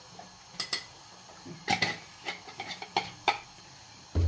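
A spoon tapping and scraping against a frying pan in a string of irregular clicks while stirring. Near the end a low, loud thump.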